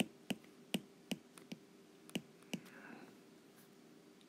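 Stylus tip tapping and clicking on a tablet's glass screen while writing by hand: about seven sharp clicks in the first two and a half seconds, then quiet.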